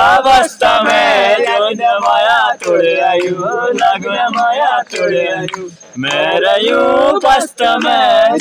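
A group of men singing an Uttarakhandi folk song together, live, with a short pause about two-thirds of the way through.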